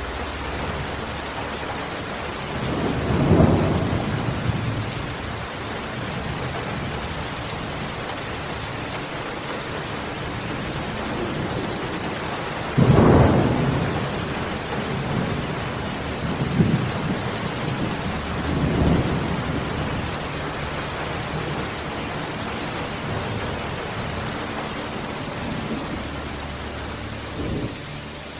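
Steady rain falling through a thunderstorm, with rolling thunder: a rumble about three seconds in, a sudden, louder peal about thirteen seconds in, then a few smaller rumbles.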